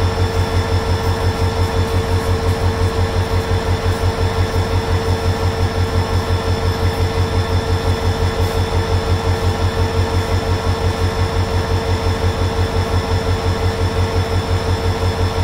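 Diesel engine of a standing train running steadily: an even low throb pulsing about five times a second, with a steady hum above it.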